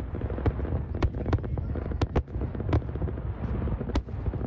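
Aerial fireworks shells bursting: a string of sharp, irregularly spaced bangs, about seven in four seconds, over a continuous low rumble.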